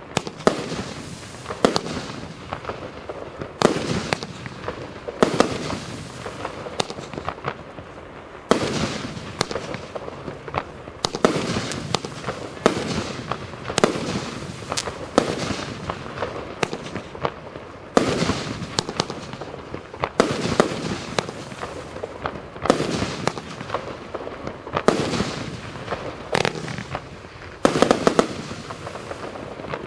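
A 238-shot compound fireworks cake firing a continuous barrage of shots and bursting shells, with crackling between. A heavier bang comes every second or two.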